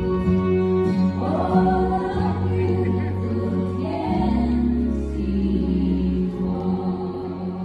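Waltz-time song playing: a singing voice over held, sustained chords.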